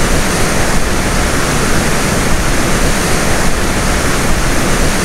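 Large waterfall about 10 to 20 metres high, with a loud, steady rush of falling water.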